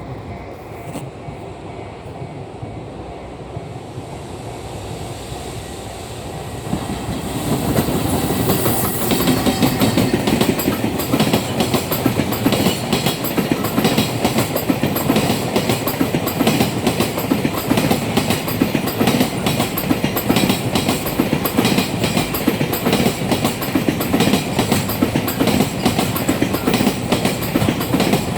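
A freight train hauled by an EF210 electric locomotive passes over a level crossing, its wheels clattering over the rail joints in a steady repeating rhythm. It grows loud about seven seconds in and keeps going as the long line of container wagons rolls by.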